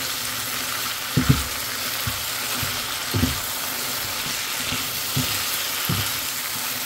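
Flat beans and green chillies in spice paste sizzling in a frying pan while a silicone spatula stirs them, with a few soft knocks of the spatula against the pan. The sound of the vegetables being stir-fried with the masala.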